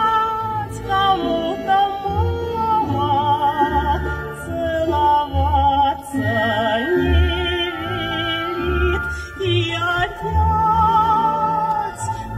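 Music with a singer using strong vibrato over a pulsing bass line.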